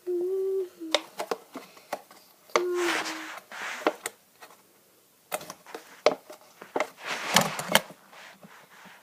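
Doll packaging being opened: crinkling, rustling and sharp clicks from plastic and cardboard. A short two-note tone falling in pitch is heard twice, once at the start and once about three seconds in.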